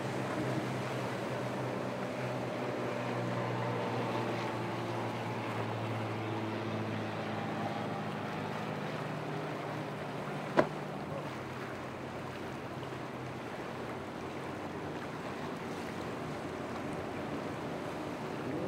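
Four Yamaha outboard engines droning steadily as their boat runs through rough surf, over a constant hiss of wind and waves; the engine drone fades after about eleven seconds. A single sharp click about ten and a half seconds in is the loudest sound.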